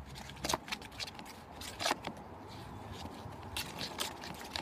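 Metal spoon stirring slime mixture in a plastic container, with a few irregular clicks and scrapes as it knocks against the sides and bottom.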